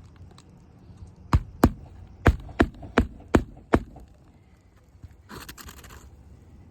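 Hammer driving a nail into asphalt roof shingles: seven sharp blows in quick succession, then a short scraping rustle about five seconds in.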